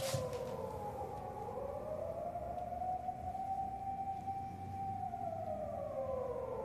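A single sustained tone in the drama's background score. It glides slowly down, climbs back up and holds steady, then slides down again near the end.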